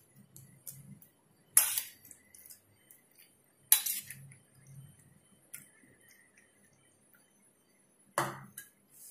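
A spoon clinking and scraping against a stainless steel bowl as chickpea chaat is served into a ceramic bowl: three sharp clinks, about one and a half, four and eight seconds in, with fainter taps between.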